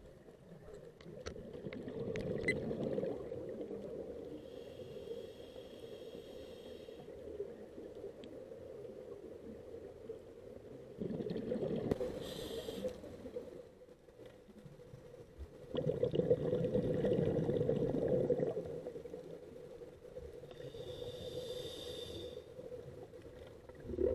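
Scuba diver breathing through a regulator underwater, in slow cycles: hissing inhalations alternate with low rumbling bursts of exhaled bubbles, three of each, with a few faint clicks in the first seconds.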